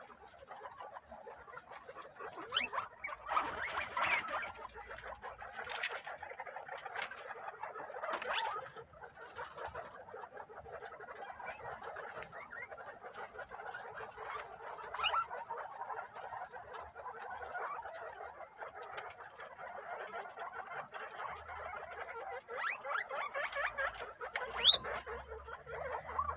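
Peru-breed guinea pigs feeding together on corn husks: a dense, steady chatter of small squeaks mixed with chewing and rustling. There are louder moments about four and eight seconds in, and a sharp rising squeak near the end.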